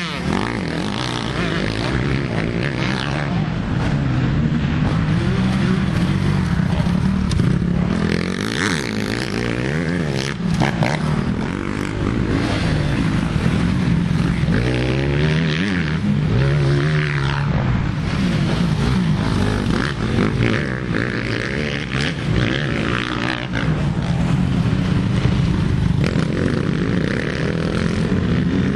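Several motocross dirt bikes riding a dirt track, their engines revving up and down in pitch as they accelerate, shift and back off through the corners and jumps.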